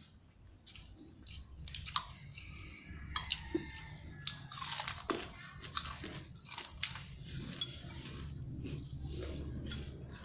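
Fried prawn crackers (bánh phồng tôm) being bitten and chewed: a run of irregular sharp crunches.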